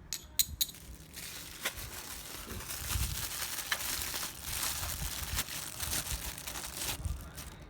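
A few sharp clicks, then packaging crinkling and crackling steadily as it is handled and unwrapped by hand for several seconds.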